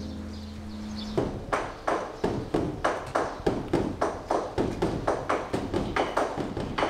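Large Korean Buddhist temple drum (beopgo) beaten by a monk with sticks, a steady run of strikes about three a second that starts about a second in. Before the drumming, a sustained ringing tone fades out.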